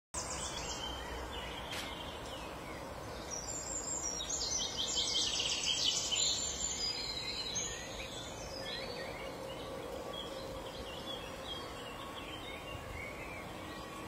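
European goldfinches twittering, a rapid high trilling song that is busiest and loudest a few seconds in and then thins to scattered short calls, over a steady low background noise.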